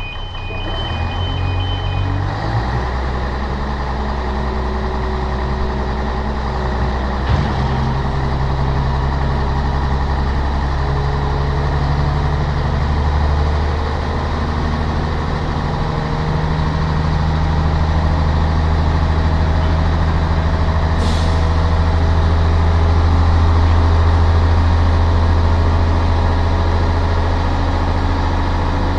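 Heavy diesel engine of a crane running steadily, its pitch shifting a few times. A short hiss of air comes a little past two-thirds of the way through.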